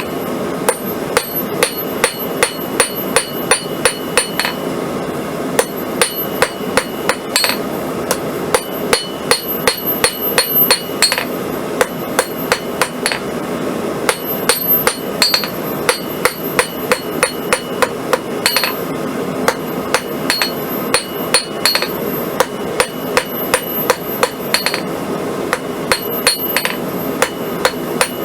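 Hand hammer striking hot square steel on an anvil in runs of about three blows a second with short pauses, the anvil ringing with each strike, as the point of a drive hook is drawn out. A steady rushing noise runs underneath.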